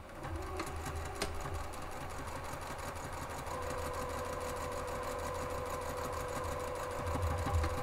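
Juki sewing machine running steadily, stitching a seam through layers of cotton fabric and lining. Its motor pitch steps up slightly about halfway through.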